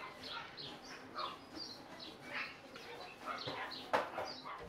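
Rapid high-pitched chirping and squeaking from small animals: many short calls, several a second, each falling in pitch, with a sharp tap about four seconds in.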